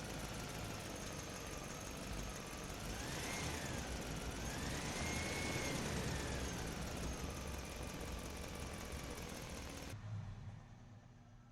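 Car engine running steadily, with a faint tone that rises and falls twice in the middle; the sound cuts off abruptly near the end.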